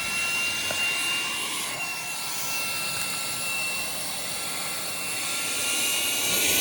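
Small 4-in-1 cordless handheld vacuum's motor running steadily: a high whine over rushing air.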